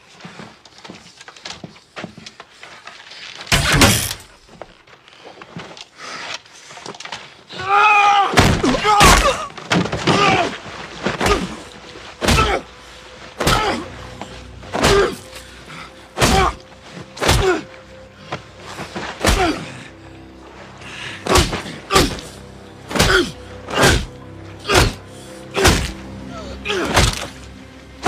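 Heavy fist blows landing again and again, about one a second, over an orchestral score. There is one loud impact a few seconds in, and a loud cry just before the blows begin.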